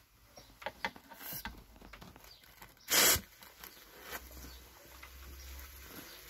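One short rush of insecticide blown through a long lance onto a wasp nest, about three seconds in, with faint clicks and taps around it.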